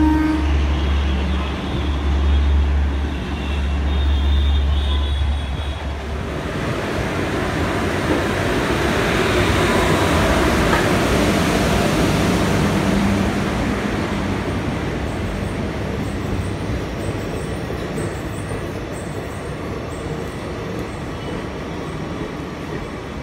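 Passenger train running along the rails. A steady low hum for the first few seconds, then the rolling rumble of a diesel-hauled rake of ICF coaches passing alongside a platform, swelling and then slowly fading.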